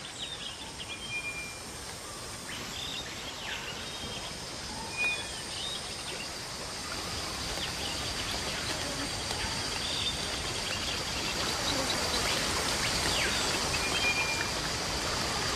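Rainforest ambience: a steady high insect drone with scattered bird calls, over a wash of running water that grows gradually louder.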